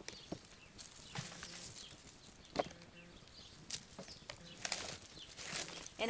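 Hands rummaging through loose potting soil and pulling out dry potato roots and stems: soft rustling with scattered small crackles and clicks, one sharper crack about two and a half seconds in.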